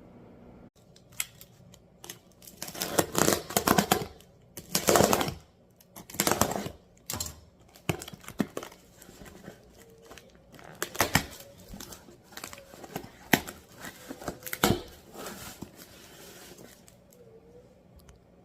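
A shipping box being unpacked by hand: tape and packaging cut and torn open, with rustling and crinkling, loudest in a few seconds-long rasps early on, then scattered clicks and knocks as the contents are handled.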